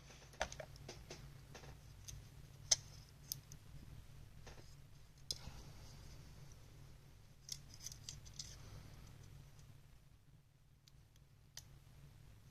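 Scattered light clicks and scrapes of small laptop parts being handled during the CPU fan and heatsink refit. One sharper click comes a little under three seconds in, with a cluster of clicks around eight seconds. A steady low hum runs underneath.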